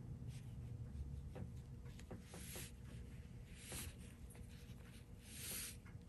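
Soft-haired Chinese brush dragging ink across xuan rice paper: three faint hissing strokes, the last the longest, with a few light ticks.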